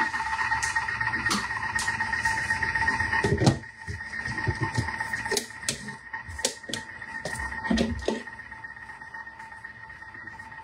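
Thermomix running on simmer: its motor gives a steady whine that holds one pitch, with scattered light clicks and a few soft thumps.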